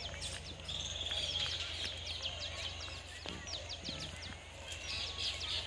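Small birds chirping in quick, repeated short falling notes, with a brief rapid trill about a second in.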